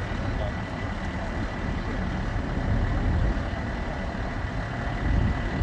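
Medevac helicopter approaching, a low choppy rumble growing steadily louder.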